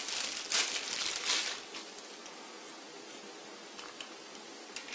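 Crinkling, rustling handling noise, as of plastic packaging, during the first second and a half, followed by a few faint clicks. The centrifuge itself is not running: its lid is open.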